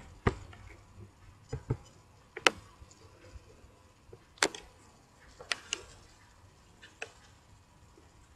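Computer keyboard and mouse clicks: about eight sharp, irregularly spaced taps as a short word is typed slowly.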